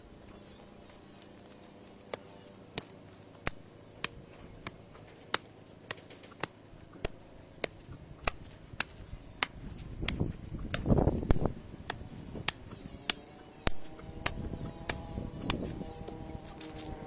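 Digging in hard soil with a long steel digging bar: irregular sharp knocks and clicks as the bar strikes and loosens the earth, with a louder, longer stretch of noise about ten seconds in.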